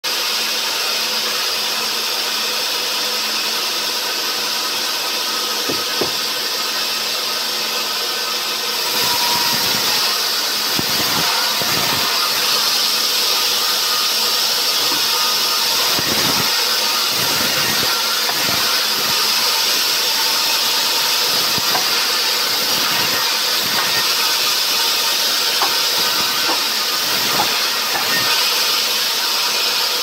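Large band saw running steadily. From about nine seconds in it grows louder and hissier as the blade cuts lengthwise through a pine log, with scattered knocks as the log is handled on the iron table.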